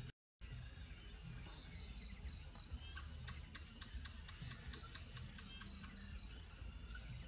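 Insects chirping outdoors: runs of short, high, evenly spaced chirps, with a stretch of fast clicking in the middle, over a low steady rumble. The sound drops out for a moment just after the start.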